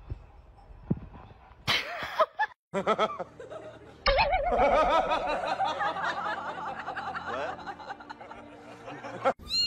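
Several people laughing together, with loud overlapping laughter starting about four seconds in and trailing off after a few seconds. A brief loud burst of sound comes a couple of seconds before it.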